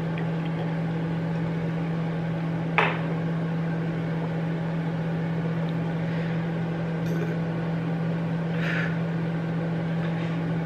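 Microwave oven running with a steady hum while it heats butter. There is a brief knock about three seconds in.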